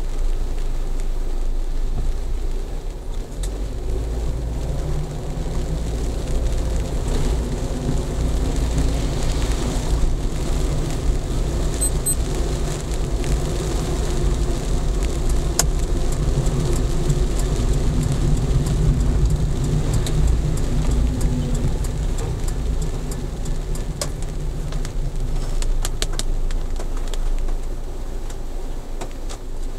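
Car interior noise picked up by a dash camera's built-in microphone: a steady low rumble of the engine and tyres on a wet road while driving in traffic. A few sharp clicks come near the end.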